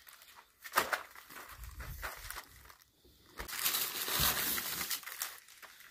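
Plastic and cardboard packaging of a cat-treat advent calendar being handled and crinkled: a few clicks, then rustling that is loudest from about three and a half to five seconds in.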